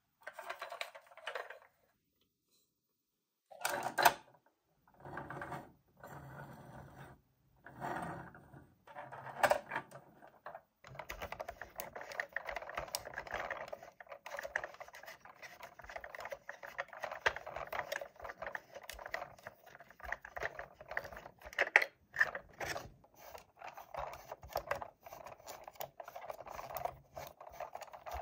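Close handling of a plastic toy and its packaging: scattered clicks and knocks with short pauses, then, about halfway through, a steady run of rapid small clicks and rattles.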